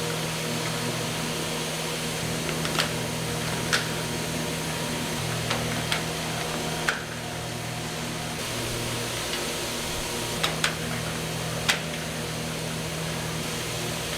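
Factory processing machinery humming steadily, with sharp clicks or knocks at irregular intervals, about eight of them.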